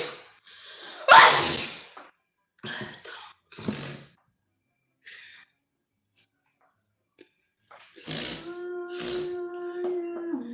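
A person sneezing during an allergic rhinitis attack: one loud sneeze about a second in, then three shorter sharp bursts of breath over the next few seconds. In the last two seconds a steady held tone with overtones comes in.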